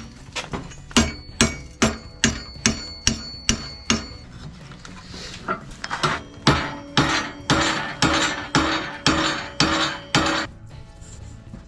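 Blacksmith's hammer striking steel on an anvil, about two blows a second with a short pause partway through. The first run of blows rings with a high metallic tone; the later blows are duller.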